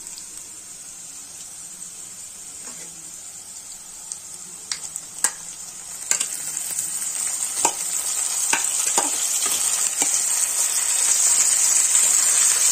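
Sliced onions frying in hot oil in a kadai with a quiet sizzle. About six seconds in, marinated raw chicken pieces are tipped in from a steel bowl, with a few metal clinks and knocks. The sizzle then swells steadily louder.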